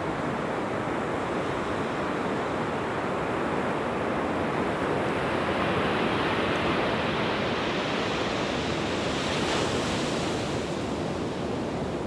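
Ocean surf breaking and washing up the beach, with wind buffeting the microphone. The wash swells and turns hissier toward a peak about nine to ten seconds in, then eases off.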